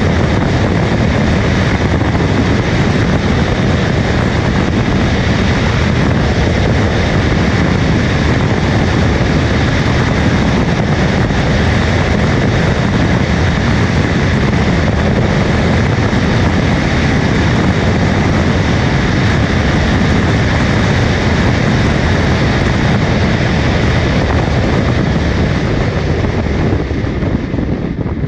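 Steady rush of wind and road noise from an SUV driving at high speed, wind on the microphone over a low rumble. It begins to fade near the end.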